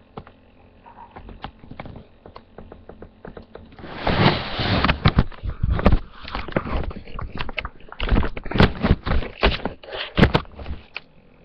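Handling noise from a webcam being picked up and moved: a few light clicks, then from about four seconds in a run of loud rubbing, knocks and bumps on its microphone that stops shortly before the end.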